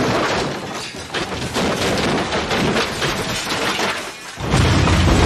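Truck crash sound effects: glass shattering and metal and debris crashing and clattering, then a louder, deeper crash about four and a half seconds in as a truck smashes into a mobile home.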